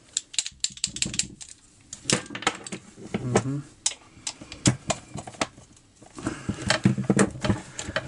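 Irregular metallic clicks and taps of a socket wrench, extension and ratchet working the muffler bolts of a chainsaw, with tools and small parts knocking on a concrete floor.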